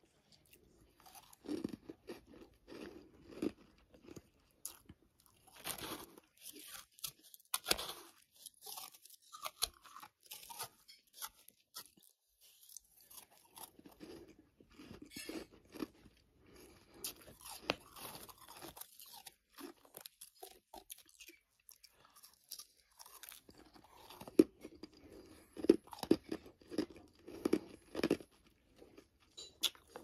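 Close-up crunching and chewing of a mouthful of combined freezer frost and humidifier frost, a long run of crisp, irregular crunches that come in thick clusters, the densest and loudest near the end.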